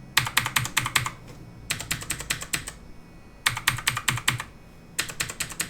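Clicky blue-type switches of a Tomoko budget mechanical keyboard being typed on in four quick bursts of about a second each, many rapid key clicks per burst with short pauses between.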